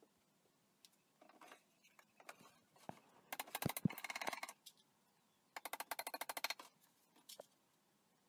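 A hammer driving nails into a glued plywood drawer in two runs of rapid taps, each about a second long. The first run, a little past three seconds in, has a couple of heavier knocks.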